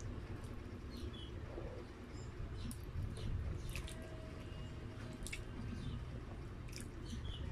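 Close-up wet eating sounds of spaghetti in tomato sauce: chewing and slurping noodles, with sharp wet lip-smacking clicks scattered throughout over a steady low rumble.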